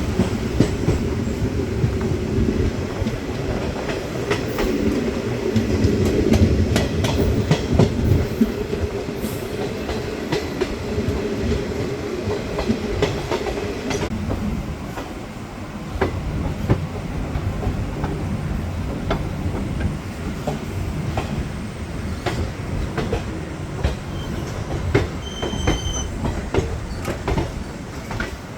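DEMU (diesel-electric multiple unit) train running on the rails: a steady rumble with a humming note that drops away about halfway through, under the rhythmic clicking of the wheels over the rail joints. A brief high squeak comes near the end.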